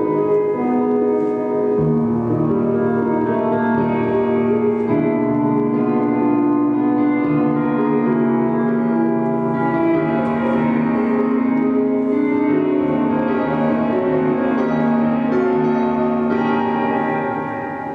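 Slow music of sustained keyboard chords that shift every few seconds, fading down near the end.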